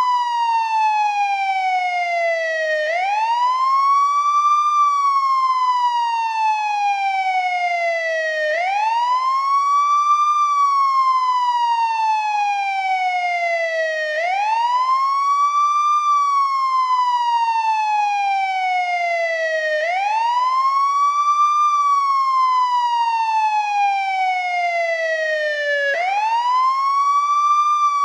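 Old-model American ambulance wail siren sounding continuously. Its pitch climbs quickly, then falls slowly and evenly, in a long rise-and-fall cycle that repeats about every five and a half seconds.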